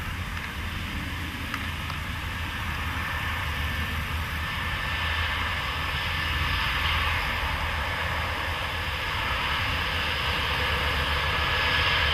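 Mercedes-Benz W123 200T estate's 2.0-litre four-cylinder in-line petrol engine running steadily as the car drives past on the road, with tyre noise. It grows a little louder near the end.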